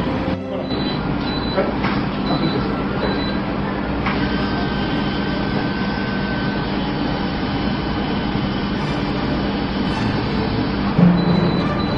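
Microkeratome motor running steadily as its head passes across the eye to cut the corneal flap, a continuous machine hum with faint high whining tones. There is a brief louder sound near the end.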